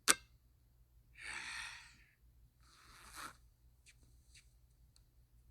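Cartoon soundtrack effects: a sharp click, then two short breathy hissing noises and a few faint ticks.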